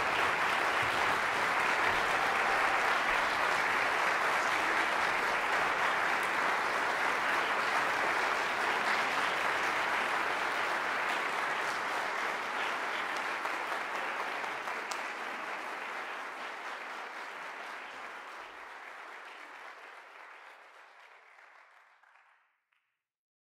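Audience applause, steady at first, then fading away gradually over the last ten seconds or so until it is gone.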